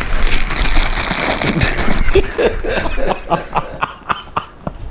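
Men laughing and snickering in short breathy bursts.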